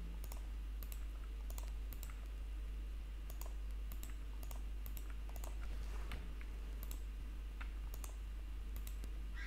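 Sparse, light clicks of a computer mouse and keyboard at irregular intervals, over a steady low hum.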